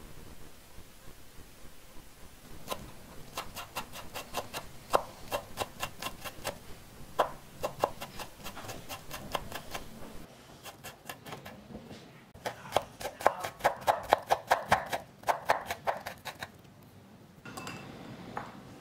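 Chef's knife rapidly mincing garlic on a wooden cutting board: quick taps of the blade on the wood, about five a second, louder and denser in the second half before stopping.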